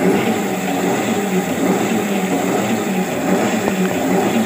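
Pedal-operated paddy thresher: its wire-toothed drum spinning with a steady drone as sheaves of rice are held against it to strip off the grain.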